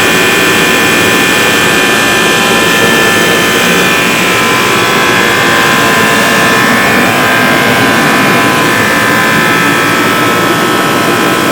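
John Deere AC-70-1 70,000 BTU forced-air portable heater running on No. 2 diesel fuel: a steady burner-and-blower noise with several steady whining tones above it.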